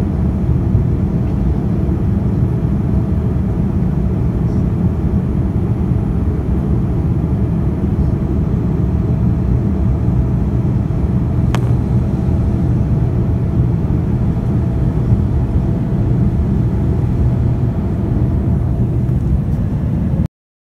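Steady low rumble of jet engine and airflow noise inside a Boeing 787-9 airliner's cabin in flight, heard from a window seat beside the engine. A single faint click about halfway through; the noise cuts off abruptly near the end.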